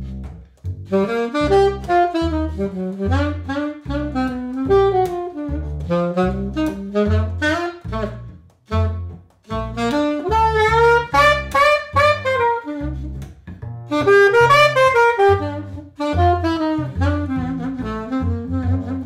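Alto saxophone improvising a Dixieland-style jazz line in B-flat, accompanied by a plucked upright double bass keeping a steady line of about two low notes a second. Both briefly drop out about eight and a half seconds in.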